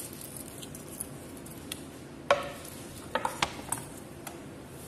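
Wooden cutting board, kitchen knife and garlic cloves being set down on the kitchen counter: a handful of light knocks and clicks. The loudest, about two seconds in, has a short metallic ring; a quick cluster follows about a second later.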